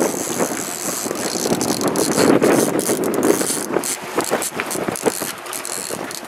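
Big king salmon thrashing and splashing at the surface as it is brought to the landing net, with many short sharp splashes and the loudest stretch about two to three seconds in, over steady wind and water noise.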